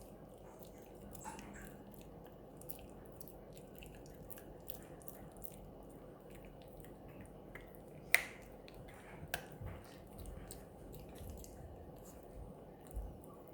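A dog gnawing on a chew stick: a run of small, irregular clicks and crunches from its teeth, with a sharper crack about 8 seconds in and another about a second later.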